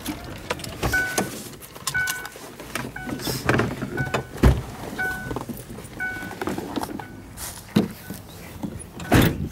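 Car's warning chime dinging about once a second, a short two-tone ding repeated about seven times, as the driver's door is opened with the car stopped. Clicks and knocks of the door and seat handling come between the dings, with a heavy thump about halfway and another loud knock near the end.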